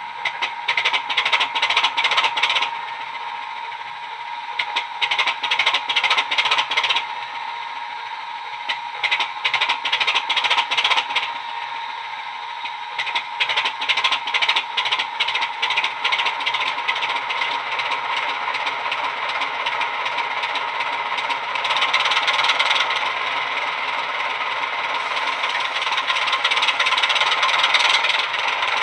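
A Class 25 diesel sound file on a DCC sound decoder, played through two small EM1 speaker drivers in the model locomotive. The engine idles with bursts of rattling clatter every few seconds. From about halfway it settles into a steadier running sound that grows louder near the end as the loco moves off.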